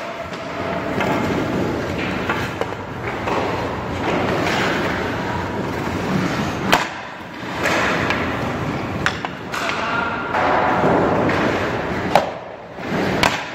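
Ice hockey skates scraping and carving on rink ice, with a few sharp clacks of pucks shot off a stick and striking the goaltender's pads.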